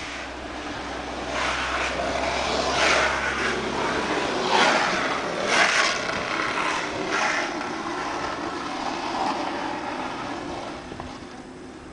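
A vehicle passing by outdoors: road and engine noise swells up, peaks midway, then fades away.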